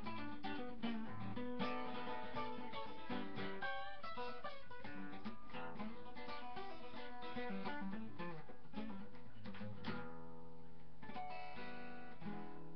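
Guitar playing a rockabilly blues instrumental passage: quick picked notes and chord stabs, with a chord left ringing about ten seconds in before a few more notes.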